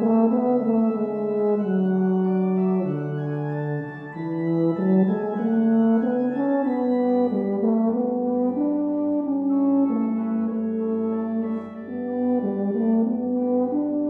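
Tuba playing a slow melodic solo line of held notes over church organ accompaniment. A low held bass note joins about seven seconds in.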